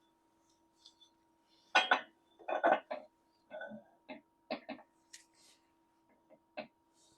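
Metal parts of a milling-machine head clinking and knocking as they are handled and fitted during hand assembly: a dozen or so irregular sharp clanks, the loudest about two seconds in, then scattered lighter clicks.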